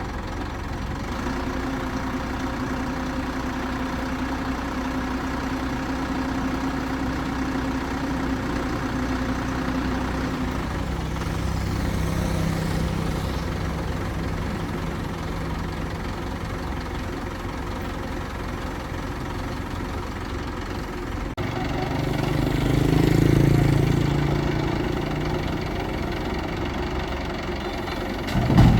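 Crane engine running steadily. Its pitch drops about ten seconds in, and it swells louder for a couple of seconds near the end.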